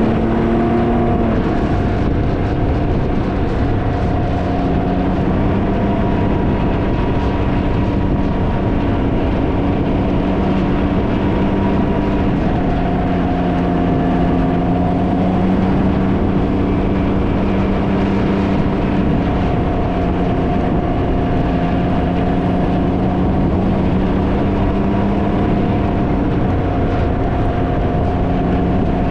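Can-Am Ryker's three-cylinder engine running at steady cruising revs, its pitch drifting up and down a little. Heavy wind noise on the microphone runs under it the whole time.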